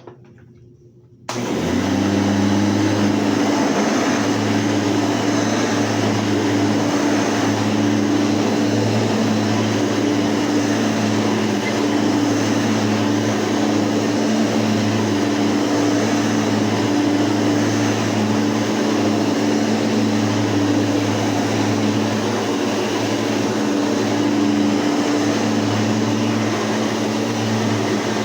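Hoover Elite U4455 5-amp soft-bag upright vacuum cleaner switched on about a second in: its motor spins up quickly, then runs steadily with a low hum over a strong rush of air.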